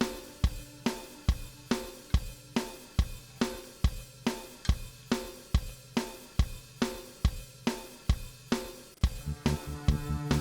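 Background music: a steady drum beat with cymbals and hi-hat, and a fuller bass and guitar part coming in near the end.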